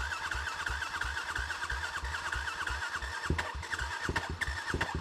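Electric starter cranking an enduro motorcycle's engine, a steady churning with about four compression beats a second, without the engine catching.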